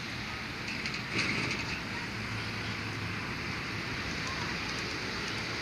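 Strong wind blowing through the trees and across the microphone: a steady rushing noise.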